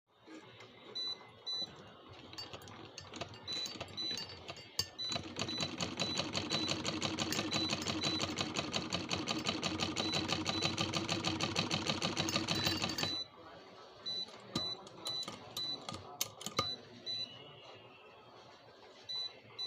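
Sewing machine running at a fast, steady stitching rhythm from about five seconds in until about thirteen seconds, then stopping. Short high-pitched beeps in pairs repeat throughout, with a few sharp clicks before and after the run.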